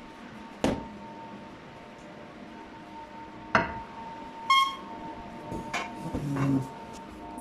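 A handful of sharp knocks, one about four and a half seconds in ringing briefly as a clink, over a steady faint tone.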